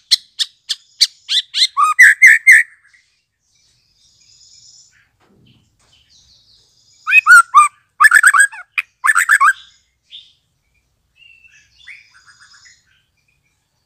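Young white-rumped shama (murai batu), just out of its speckled juvenile plumage, singing: a quickening run of sharp repeated notes runs into a loud warbled phrase, then after a pause of several seconds comes a second loud burst of warbling, followed by a few faint notes near the end.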